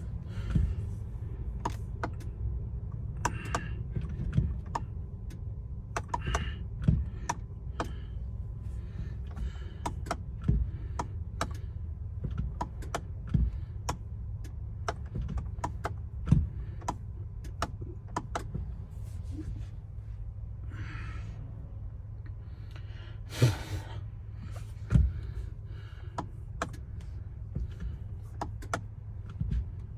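Scattered light clicks and knocks, with a few louder thumps spread through, over a steady low hum.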